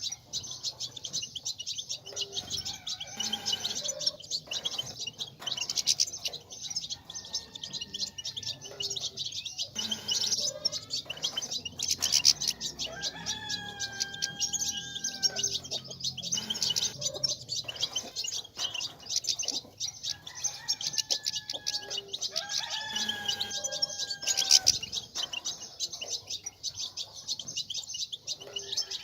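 European goldfinches twittering and singing in a dense, continuous chorus of rapid high notes, the kind of twittering played to stimulate caged male goldfinches to sing. Mixed in every few seconds is a lower, drawn-out call that glides down at its end.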